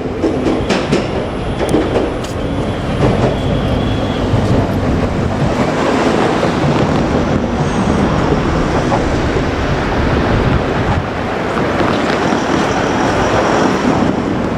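JR Kyushu 787-series electric train running past at close range: a steady rumble of wheels on rail with clicks over the rail joints, and a faint high wheel squeal at times.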